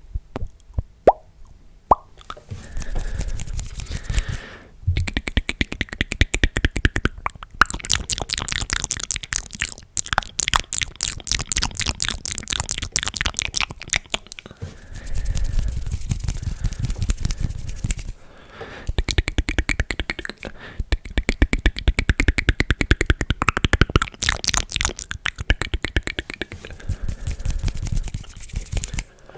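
Close-miked ASMR mouth sounds: rapid runs of wet clicks and pops made with the tongue and lips, broken by short pauses.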